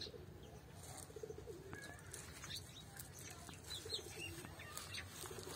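Faint background birds calling: a few short, low calls made of quick repeated pulses, with brief higher chirps in between.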